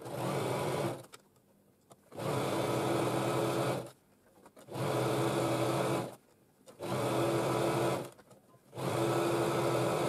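Domestic sewing machine running a zigzag stitch along a twice-folded strip of biflex (stretch Lycra), sewn in five short runs of a second or so each with brief stops between.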